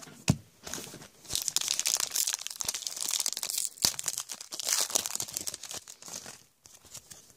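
A foil trading-card pack of Panini Prestige football cards being torn open and crinkled by hand: a dense, crackly rustle of the wrapper for several seconds that dies away near the end.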